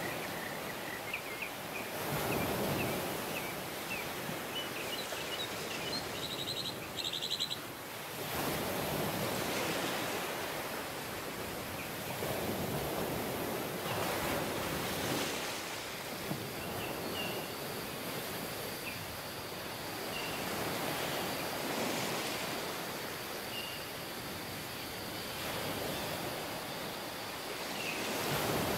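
Ocean waves washing onto a shore, swelling and falling back every few seconds, with short bird chirps above.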